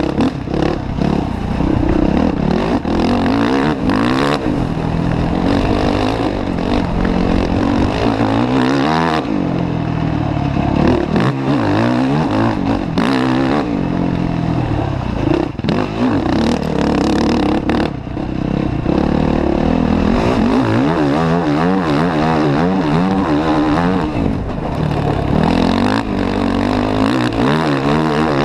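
Off-road quad's engine revving up and down again and again as it is ridden hard over a dirt track, heard from a helmet-mounted camera, with wind and track noise under it.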